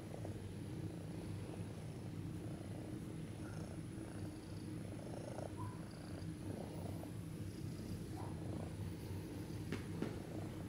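A 20-year-old cat purring steadily as it is stroked on the head, with two faint clicks near the end.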